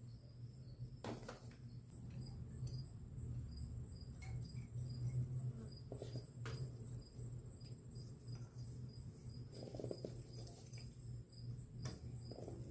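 Light clicks and knocks of engine parts being handled, over a steady low hum. A regular high-pitched chirp repeats a few times a second.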